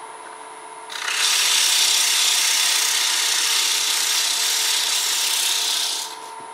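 Hand-held sandpaper pressed against the bottom of a spinning elm bowl on a wood lathe: a steady abrasive hiss that starts about a second in and stops about a second before the end. It sits over the lathe's steady hum.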